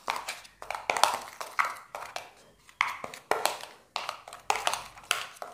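Spoon stirring a dry powder mix in a small plastic bowl: a quick, uneven series of scrapes and taps against the bowl, about three a second.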